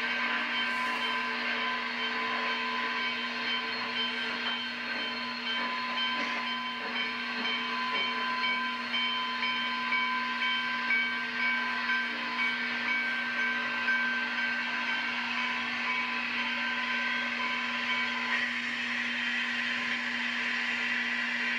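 Steam locomotive moving slowly past at close range, with a steady hiss of steam and soft chuffs for a few seconds in the middle; the hiss grows brighter near the end.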